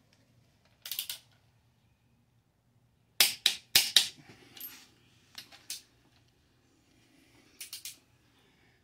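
A click-type torque wrench clicking as cylinder head bolts are pulled down to 110 lb-ft: a series of sharp metallic clicks, some in close pairs, with short gaps between.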